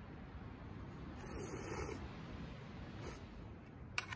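A person slurping noodles, one hissy slurp about a second in, with a sharp click near the end.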